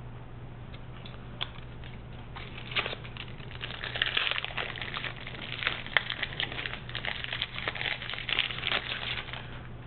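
Foil wrapper of a baseball-card pack crinkling and tearing as it is opened by hand: a dense run of irregular crackles starting about two and a half seconds in, over a steady low hum.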